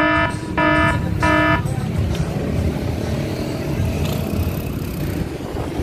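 A horn sounds three short toots in quick succession, each about a third of a second, then gives way to a steady rumble of wind and road noise.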